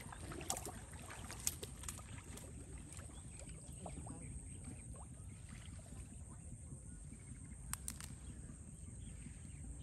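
Faint outdoor background of low rumble and hiss, broken by a few short sharp clicks or taps, three in the first two seconds and a pair near the end.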